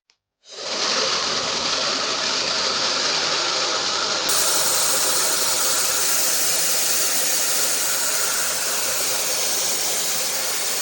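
Hair dryer switched on with a click, its fan spinning up within about half a second and then blowing steadily with a loud, even rush of air.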